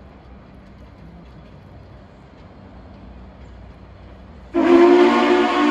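Three-chime steam whistle of locomotive No. 4501 blowing suddenly and loudly about four and a half seconds in, a held chord of several tones, after a stretch of faint low rumble.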